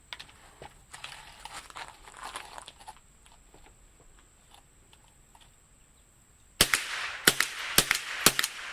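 A semi-automatic rifle firing a quick string of about five shots, roughly two a second, each a sharp crack with a short ringing tail. The string starts late in the stretch, after a few seconds of faint handling noise.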